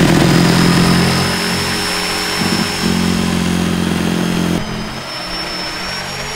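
Corded DeWalt jigsaw running and cutting through a plywood sheet, a steady motor buzz with a thin high whine. Its sound changes about four and a half seconds in, the heavier low part falling away while the saw keeps running.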